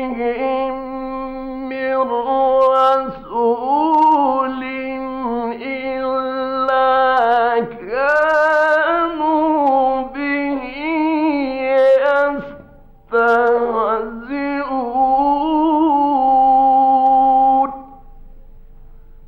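A male Quran reciter chanting in the drawn-out mujawwad style: long held notes with winding melismatic turns of pitch, broken by two short breaths and ending a little before the end. It comes from an old 1950s Egyptian radio broadcast recording.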